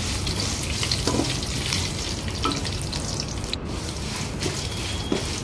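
Dried red chillies, chana dal, coriander seeds and curry leaves frying in oil in a steel pan: a steady sizzle, with a spatula scraping and stirring through them every second or so.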